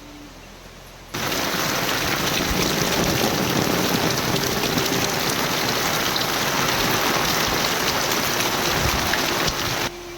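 Heavy rain pouring down, a dense hiss full of fine patter. It starts abruptly about a second in and cuts off just before the end.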